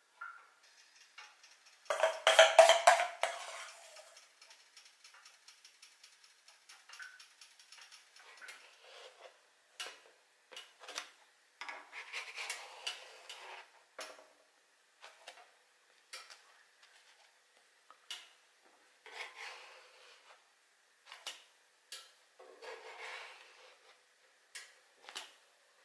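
Spatula knocking and scraping on a non-stick griddle plate as fluffy pancakes are turned, in scattered short clacks and scrapes, with a loud clatter about two seconds in.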